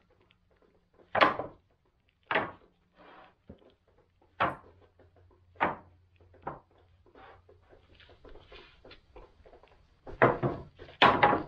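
Freshly sawn wooden 2x4 boards being laid onto a lumber stack: separate wood-on-wood knocks about a second apart, with lighter clatter between and the loudest knocks near the end.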